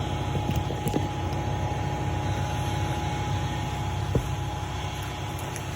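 Steady mechanical hum of running machinery, with a faint constant whine, broken by a couple of light knocks about one second in and again near four seconds.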